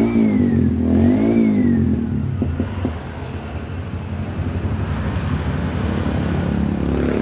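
A motor vehicle engine revs up and back down twice in quick succession, then settles into a steady low running rumble.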